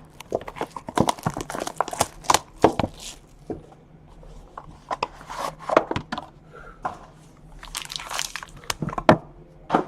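Trading card packaging being crinkled and torn open by hand, with a string of sharp crackles in several clusters, as cards are pulled and handled.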